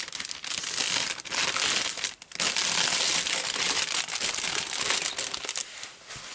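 Thin clear plastic wrapping crinkling as it is pulled off a rolled canvas by hand: a dense crackle with a short break about two seconds in.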